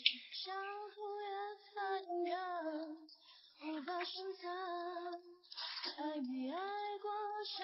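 A high female voice singing a song, moving between held notes with short slides in pitch.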